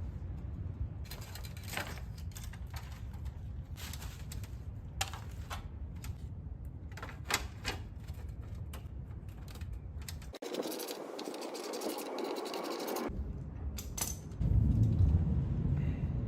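Ratchet wrench clicking in short runs and small metal parts being handled while 10 mm bolts are loosened, over a steady low rumble. Partway through, the rumble drops out for a few seconds of even hiss.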